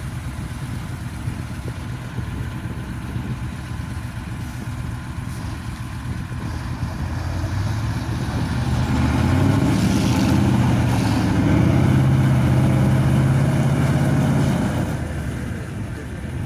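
KamAZ truck's diesel engine working under load as it tows a trailer across snow, rising in pitch and loudness about eight seconds in and holding high for several seconds before easing off near the end.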